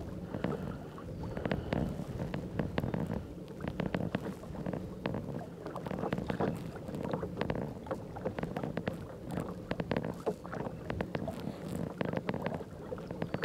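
Kayak under way on the water: water lapping and splashing against the hull, with many small irregular clicks and knocks over a low rumble.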